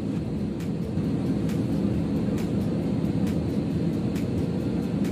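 Steady low roar of turbofan engines and rushing air heard inside the cabin of an Airbus A320 jet airliner descending on its landing approach.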